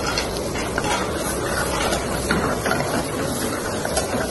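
Chicken and diced vegetables frying with a steady hiss in an aluminium pan over a lit gas burner. A metal ladle scrapes and clinks against the pan a few times.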